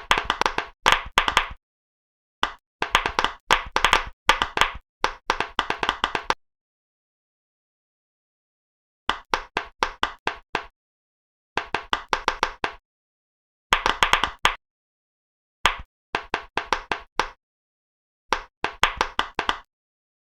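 Pop-it fidget toy bubbles being popped: quick runs of sharp little pops in clusters of one to two seconds, with short pauses between them and a silent gap of about three seconds near the middle.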